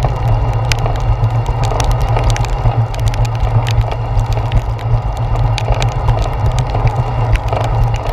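Raindrops tapping on a handlebar-mounted GoPro Hero 4 as many sharp, irregular ticks, over a steady low rumble from riding a bicycle through heavy rain.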